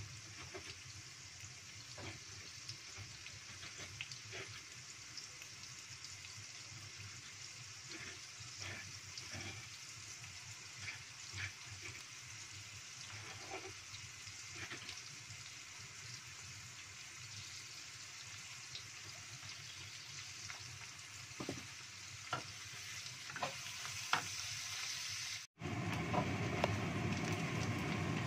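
Sliced shallots sizzling in hot oil in a nonstick wok, with scattered small pops and crackles. Near the end the sound drops out for a moment and comes back louder as a wooden spatula stirs them.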